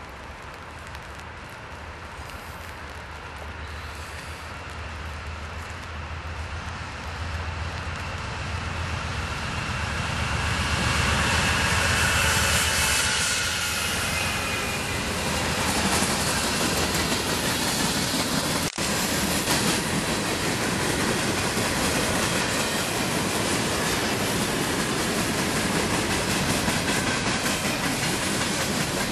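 Diesel freight train approaching and passing: the locomotives' engine hum grows louder to a peak as the engines go by, then wheels clatter steadily over the rails as loaded gondola cars roll past.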